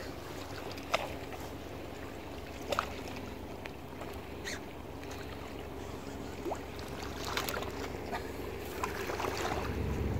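Steady low rumble of wind and water at the shoreline, with a few sharp clicks from the rod and reel as a small pollock is reeled in.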